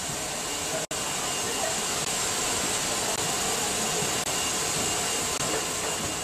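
Steam locomotive venting steam in a steady, loud hiss, with a brief dropout about a second in.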